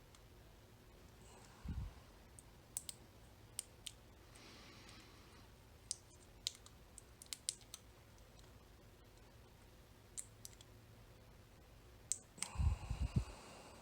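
Faint, irregular metallic clicks of a lock pick working the pins inside a Mul-T-Lock Interactive cam lock, with a dull knock about two seconds in and a few low handling bumps near the end.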